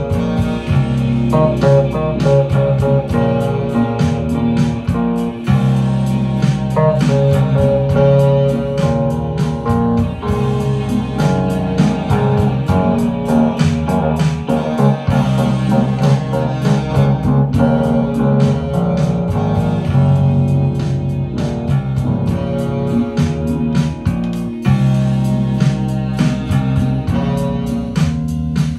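Instrumental music: a plucked, guitar-like melody over a steady bass line, with quick rhythmic notes throughout.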